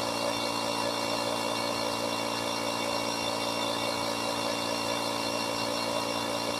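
Small air compressor running steadily with an even mechanical hum, inflating a tire with its valve core removed to seat the bead.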